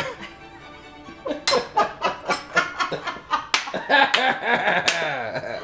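Two people laughing and coughing in short, sharp bursts that start about a second and a half in, reacting to the heat of a salad heavy with hot sauce.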